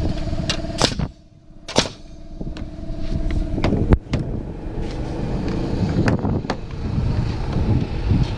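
Pneumatic jumbo framing nailer driving 20-penny ring-shank galvanized nails into framing lumber: a series of sharp shots, the two loudest within the first two seconds and lighter ones later, over a steady low rumble. A steady hum stops about halfway through.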